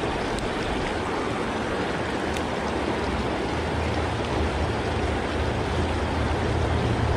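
Shallow mountain creek rushing and splashing over rocks, a steady, even rush of water. A low rumble builds under it near the end.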